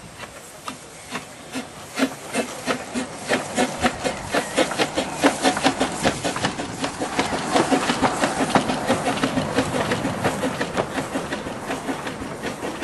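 Two-foot narrow-gauge train passing at close range: a rapid, regular clicking that quickens and grows louder to a dense peak about two-thirds of the way through, then thins and fades.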